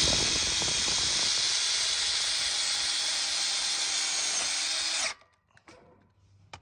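Power drill driving a self-drilling screw through the steel tubing of a carport frame seam, running steadily and then stopping about five seconds in.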